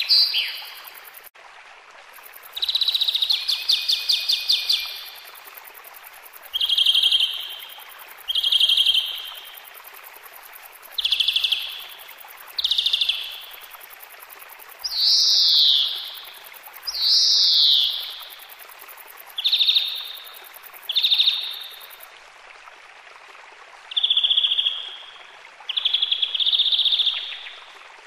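A songbird singing a run of short, high-pitched phrases about a second long, spaced a second or two apart and often in pairs. It opens with a longer trill of rapidly repeated notes, and two of the phrases sweep down in pitch.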